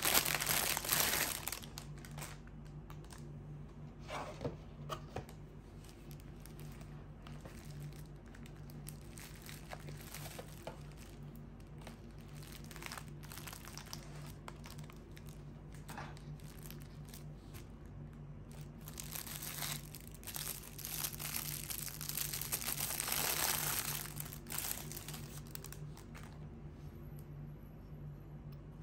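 Crinkling, rustling noise with scattered clicks, heaviest near the start and again for several seconds past the middle, over a steady low hum.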